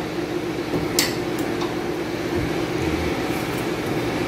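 A steady mechanical hum, with one sharp click about a second in from the tailgate latch handle being worked on the pickup's steel tailgate.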